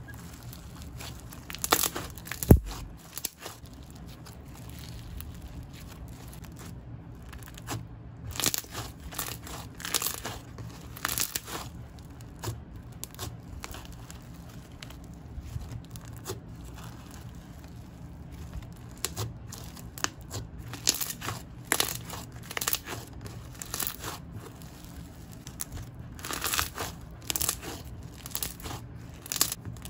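Bingsu slime, a slime packed with crunchy beads, being squished and played with by hand. It gives irregular crunchy crackles and pops, with one louder pop about two and a half seconds in.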